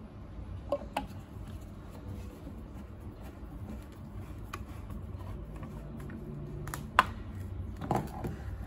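A few light clicks and taps over a low steady hum, the sharpest click about seven seconds in.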